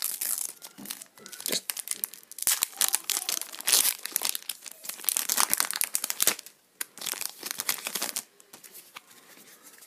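Foil Pokémon booster-pack wrapper crinkling and tearing as it is pulled open by hand, a dense run of crackles that thins out about eight seconds in.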